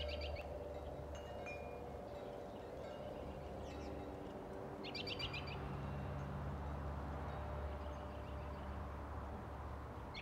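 Wind chimes ringing over a steady low rumble, while a songbird gives a short trilled call three times, about five seconds apart.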